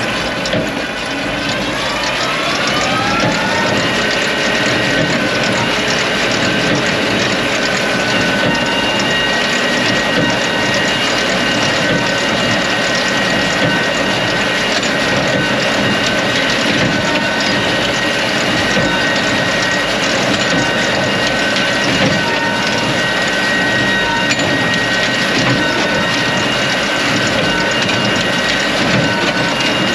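Tractor and big square baler in the field: the machinery rises in speed over about two seconds, then runs steadily with a dense clatter of gears and mechanisms over a steady whine.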